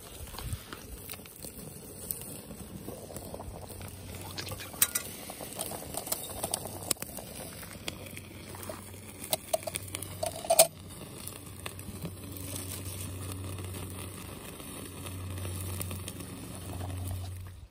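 Small wood fire crackling under a metal mess tin of simmering oden, with scattered clicks. A sharp metallic clink about ten and a half seconds in comes as the tin and its lid are handled.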